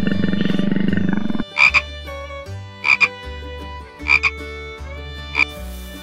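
A loud rasping buzz that cuts off suddenly about a second and a half in. It gives way to soft music of held tones, broken four times, about every second and a quarter, by short frog-like double croaks.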